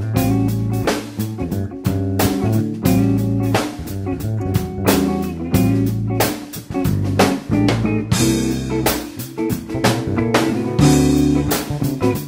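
Background music with a steady drum-kit beat, bass and guitar.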